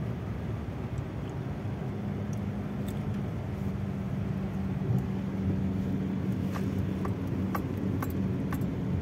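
Car interior noise while driving through a flooded street in rain: a steady engine hum over the rush of tyres and water, with a few light clicks near the end.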